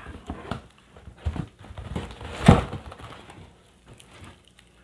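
Cardboard box and crumpled packing paper being rummaged through and a glass bottle pulled out, with scattered rustles and knocks; the loudest is a single thump about two and a half seconds in.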